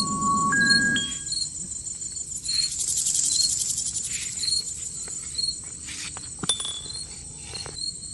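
Crickets and other insects chirping steadily with a regular pulse, under a few chiming music notes over a low drone that stop about a second in. A single sharp click comes about six and a half seconds in.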